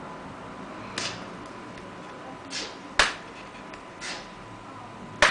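Hands and a small tool working on a netbook's plastic case during disassembly: a few short scrapes and two sharp, loud clicks, the first about three seconds in and the second near the end. A faint steady high tone sits underneath.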